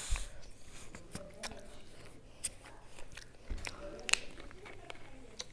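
Scattered, irregular plastic clicks and crackles as the cap of a plastic Coca-Cola bottle is twisted and the bottle is handled close to a clip-on microphone, with the sharpest click about four seconds in.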